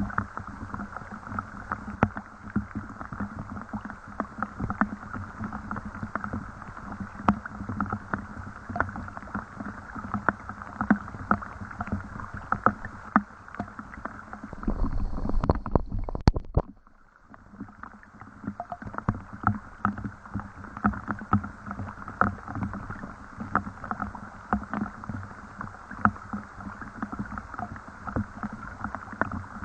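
Rain falling, with many drops tapping sharply and unevenly over a steady patter. About halfway in, a low rumble swells briefly and cuts off suddenly, followed by a short lull before the drops resume.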